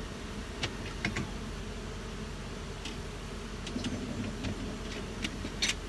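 Honeybees buzzing as a steady low hum around the open hive stacks, with scattered short, light ticks and clicks.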